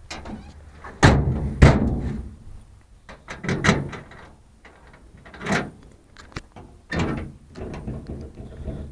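Truck-bed toolbox lid being shut, with two heavy thunks about a second in and a second and a half in, followed by several lighter knocks and clicks as the latch and the newly installed lock are worked to test that it locks.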